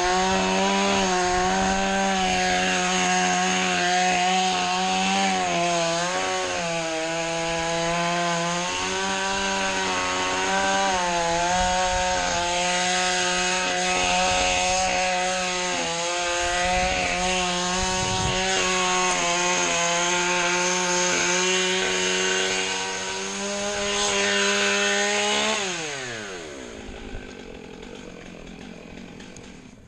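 Chainsaw held at high revs, cutting into a large tree trunk, its pitch dipping slightly now and then under load. About 25 seconds in the throttle is released and the revs fall away quickly.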